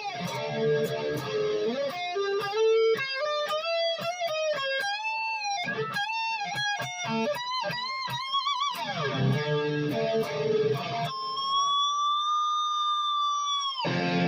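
Dean Switchblade ML electric guitar played through an amp: chords, then a run of single notes with bends and vibrato, more chords, and one long held note near the end that bends slightly up before it stops.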